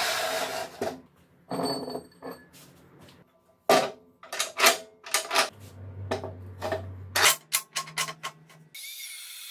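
Metal clanks and knocks as a rusty round steel bar is laid into and clamped in the vise of a portable metal-cutting band saw. About nine seconds in, a steady motor whirring starts: the band saw switched on.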